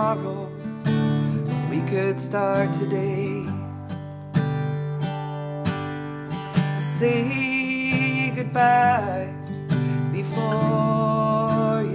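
Live acoustic folk music: a strummed acoustic guitar with a gliding melody line over it.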